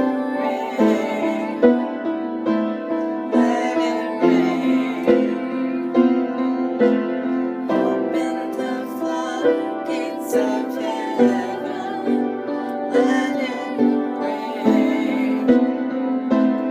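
Music: piano with a steady pulse of notes, and a female voice singing in places.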